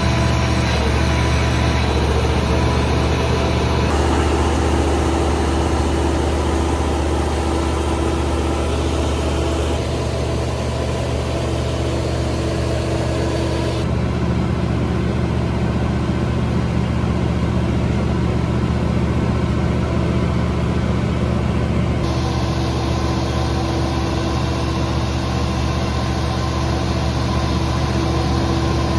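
Enclosed 48kW Generac natural-gas generator engine running steadily under a load bank test, a continuous low hum. The higher hiss above the hum changes abruptly a few times: it drops away about fourteen seconds in and comes back about eight seconds later.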